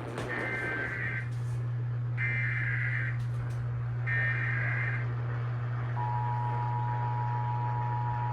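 Emergency Alert System test: three short bursts of screechy SAME header data tones about a second apart, then the steady two-tone EAS attention signal beginning about six seconds in, over a steady low hum.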